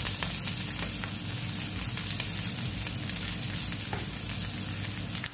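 Coarsely chopped onion lightly frying in oil in a nonstick pan: a steady sizzle, stirred with a plastic spatula that taps the pan a few times.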